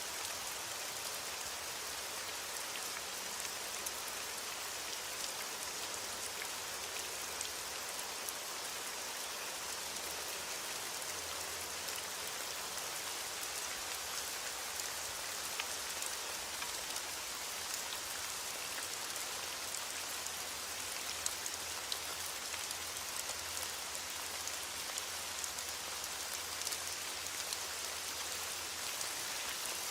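Steady rain falling, with individual drops ticking on a surface.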